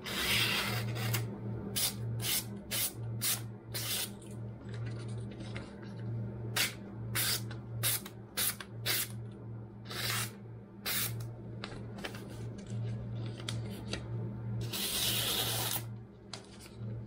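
Freshly sharpened kitchen knife slicing through a hanging sheet of glossy flyer paper in a paper-cutting test of the edge: many quick swishing cuts in runs, with one longer cut near the end. A steady low hum underneath.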